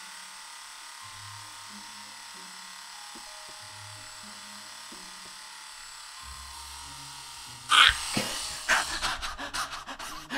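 Electric epilator running with a faint steady whir as it is worked over a leg to pull the hairs out. About eight seconds in come loud cries of pain and ragged gasps.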